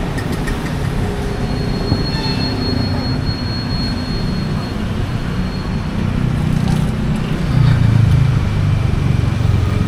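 Busy city street traffic: a steady rumble of engines and road noise, growing heavier in the second half as a vehicle nears. About a second and a half in, a thin high squeal holds for about three seconds.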